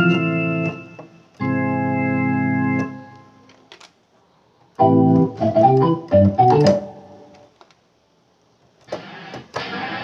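Korg X3 synthesizer playing organ-like General MIDI presets: two sustained chords held about a second each, then after a pause a quick run of short notes. Near the end a new, noisier patch starts.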